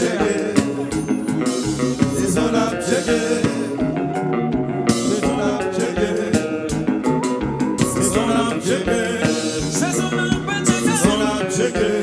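Kompa band playing live, with electric guitars, bass, keyboards, drum kit and congas under several singers singing. The cymbals drop out for about a second near the four-second mark, then the full band carries on.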